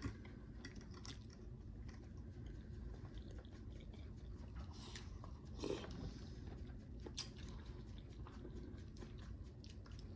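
A person chewing a mouthful of fish and plantains, with many small wet clicks and smacks of the mouth. A slightly louder smack comes a little over halfway through.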